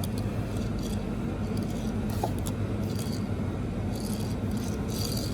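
Light scrapes and ticks of a small die-cast metal toy plane being handled and rolled on its plastic wheels, coming in scattered short bits over a steady low background hum.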